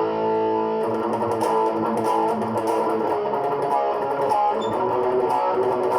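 Electric guitar played through overdrive pedals, a Boss OS-2 Overdrive/Distortion mixed with an SD-1 Super Overdrive: a run of picked, sustained, driven notes in A.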